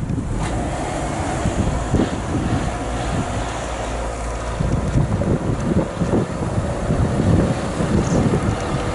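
Wind buffeting the microphone in gusts, over the steady running of a truck engine.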